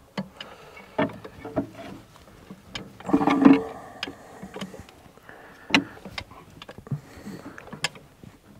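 Hand wrenches clicking and clinking on metal as the hydraulic pump's mounting bolts are loosened, with a louder scraping sound about three seconds in.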